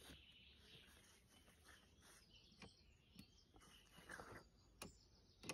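Near silence, broken by a few faint separate clicks as a folding sun lounger's metal-framed backrest is lowered to a new recline position.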